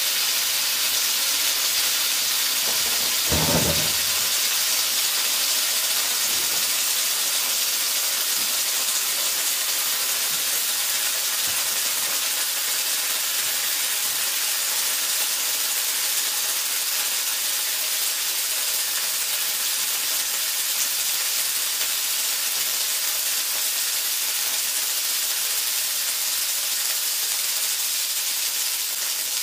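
A heated metal ball sizzling steadily as it melts its way down into a block of butter, with one brief louder pop about three seconds in.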